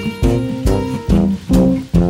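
Instrumental background music: plucked strings over a bass line, notes falling on a steady beat about twice a second.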